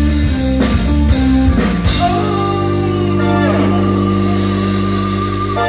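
Live funk band playing with electric guitar, bass and drums. For about two seconds the band plays in rhythm, then it holds one long chord with a falling slide part-way through, as at the close of a song.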